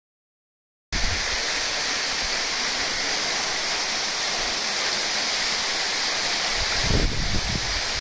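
Waterfall rushing: a steady, loud hiss of falling water that cuts in suddenly about a second in, with a low rumble rising in it near the end.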